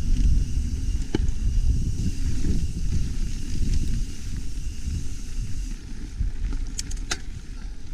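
Wind buffeting the microphone of a camera riding on a moving mountain bike: a gusty low rumble. Sharp clicks from the bike come once about a second in and twice near the end.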